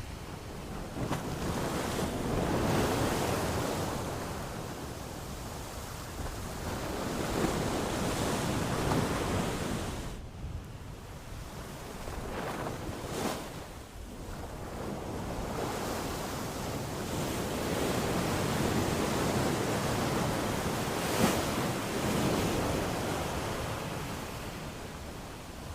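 Ocean surf washing onto a shore, each wave swelling and fading away about every five or six seconds, with a short lull between waves partway through.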